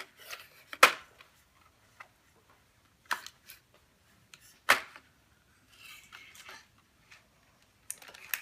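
Clear plastic packaging of doll accessories being handled on a wooden table: scattered sharp clicks and taps, the loudest about a second in and near five seconds, with a brief soft rustle around six seconds and a cluster of clicks near the end.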